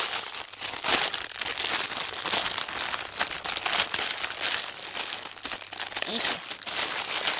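Clear cellophane gift bag crinkling and rustling as it is handled and opened: a continuous crackly rustle full of sharp crinkles.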